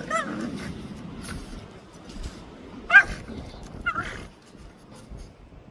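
A pet animal giving three short, high-pitched calls: one at the start, one about three seconds in and one about four seconds in.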